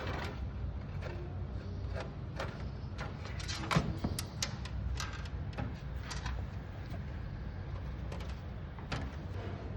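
Scattered light clicks and knocks of a computer motherboard being handled and set onto the mounting pegs (standoffs) inside a PC case, the loudest knock a little under four seconds in.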